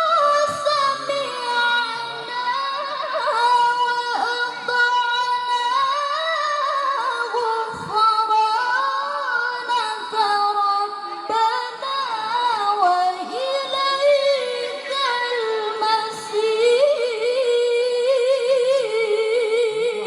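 A solo voice reciting the Qur'an in Arabic in melodic tajweed style, with long drawn-out notes that waver and turn in ornamented runs.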